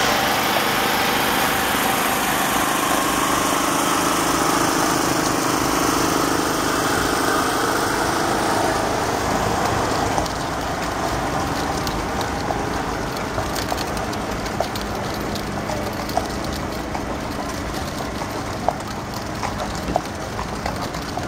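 A small portable generator running steadily, falling away about halfway through. After that, the horse's hooves clop on the road in scattered sharp clicks.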